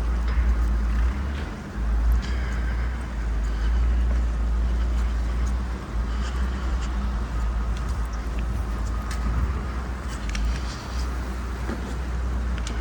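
Wind buffeting the microphone in a snowstorm: a heavy, uneven low rumble that swells and drops in gusts, with faint scattered clicks and crunches above it.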